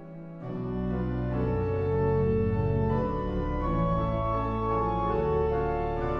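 Pipe organ playing sustained chords. A deep pedal bass enters about half a second in, and the music grows louder.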